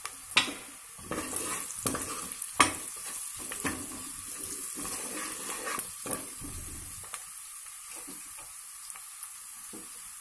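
Chopped onions sizzling in hot oil in an aluminium pressure-cooker pan, with a steady hiss. They are stirred for the first seven seconds or so, the utensil scraping and knocking against the pan, and after that the sizzle goes on by itself.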